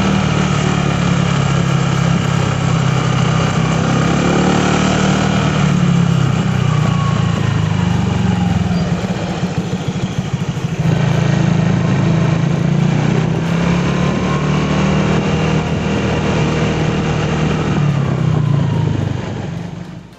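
Honda Vario scooter running on the road, its engine note steady, easing off for a couple of seconds about halfway through and then picking up again. The sound fades out just before the end.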